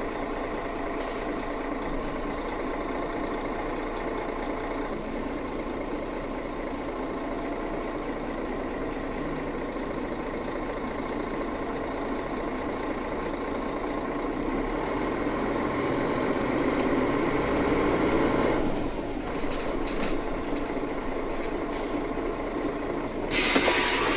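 Mercedes-Benz O530G Citaro G FL articulated bus heard from inside, driving with its engine note building up and then falling off just before 19 s as it slows. About a second before the end comes a loud burst of compressed-air hiss.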